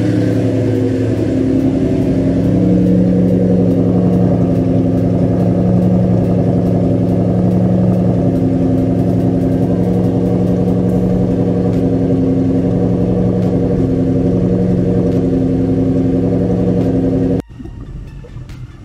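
A Lexus 3UZ-FE 4.3-litre V8, swapped into a Mercedes C230 Kompressor coupe, idling steadily through its newly fitted twin-tip exhaust. Near the end the engine sound cuts off abruptly, and a fainter low rumble follows.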